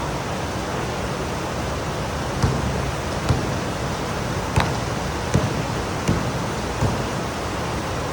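Heavy rain pouring down in a steady hiss, with a sharp tap or knock standing out about once a second.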